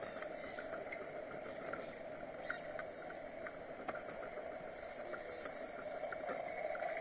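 A bicycle rolling along an asphalt path: a steady tyre and riding noise with many small ticks and rattles scattered through it.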